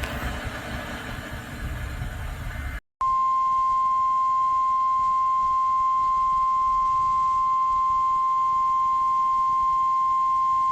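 Radio hiss for nearly three seconds, a brief cut, then NOAA Weather Radio's 1050 Hz warning alarm tone: one steady, unbroken tone sounded as the routine test of the alarm.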